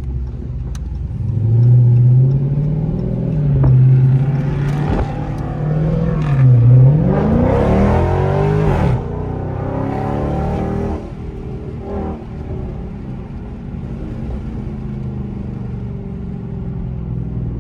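Car engine revved several times, its pitch rising and falling, with the loudest, highest rev a little past the middle, then settling into steady running.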